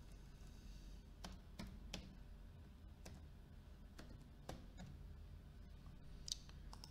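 Faint computer keyboard keystrokes: single clicks spaced about half a second to a second apart, over a low steady hum.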